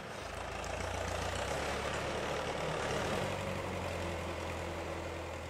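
Rubber-tyred log skidder's engine running steadily, low-pitched and even.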